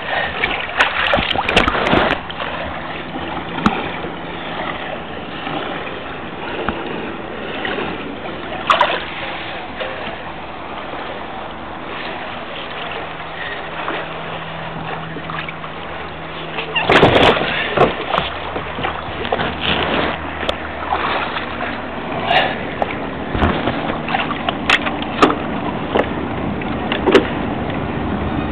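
Water splashing and sloshing against the hull of a jet ski moving slowly, with a low steady engine hum in the middle stretch. There are louder splashes near the start and again about two-thirds of the way through.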